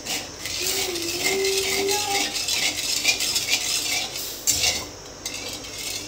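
Metal spatula stirring sugar and water in a metal kadai, a run of quick scraping strokes against the pan that dies down about five seconds in. The sugar is being dissolved to start a sugar syrup.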